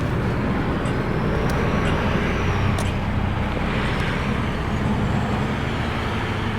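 Road traffic passing on a city street, one vehicle swelling and fading about halfway through, over a steady low rumble of heavy wind on the microphone.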